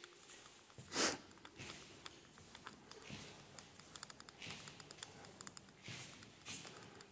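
Dense small clicks and crunches of debris, with a louder brief crunch about a second in and a few shorter ones later.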